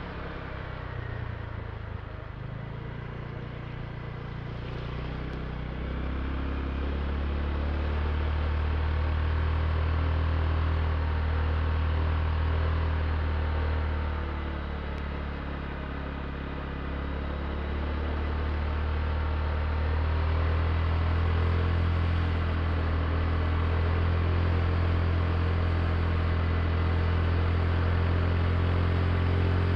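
Honda Click i scooter's small single-cylinder engine running under way. It eases off and is quieter for the first few seconds and again about halfway through, then picks up again.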